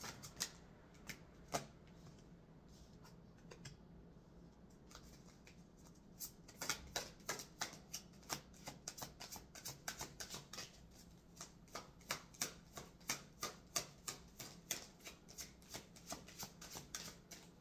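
A deck of tarot cards being shuffled overhand by hand. A few soft, scattered card snaps come first, then from about six seconds in a quick run of crisp card flicks, several a second.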